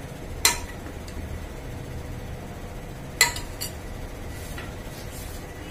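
A metal ladle clinking against a steel serving bowl and the rim of a pressure cooker while curry is ladled out. There are two sharp clinks with a short ring, about half a second in and just after three seconds, and a lighter one right after the second.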